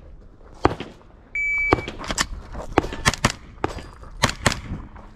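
Electronic shot timer beeps once, about a second and a half in, giving the start signal. Half a second later a handgun opens fire in a fast string of about ten shots.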